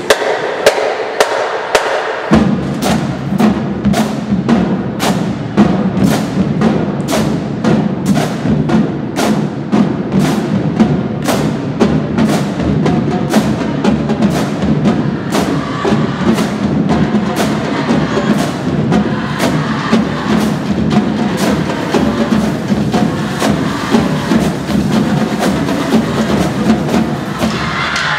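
High school marching drumline playing: sharp strikes keep a steady beat about twice a second, and the low drums come in about two seconds in.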